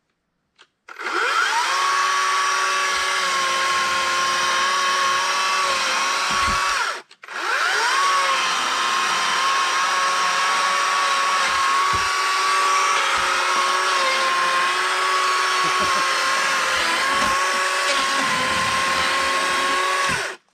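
A small electric motor spins up with a rising whine about a second in and runs at a steady high pitch. It cuts out briefly around seven seconds in, spins up again and runs on until near the end.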